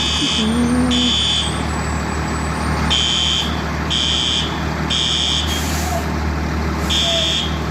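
Building fire alarm sounding the temporal-three evacuation pattern: three short, high-pitched beeps about a second apart, a pause, then the next three, repeating. Underneath runs the steady low rumble of an idling fire truck engine.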